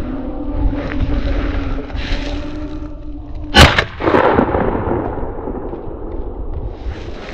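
A single close, loud shotgun blast about halfway through, fired at a rabbit being run by beagles, its report trailing off afterwards.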